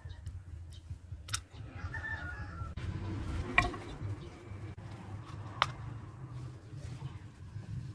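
Three separate sharp clicks and knocks, the loudest in the middle, from tin snips clipping a small wooden piece and a plastic cup being set down on a wooden plank, over a low steady rumble.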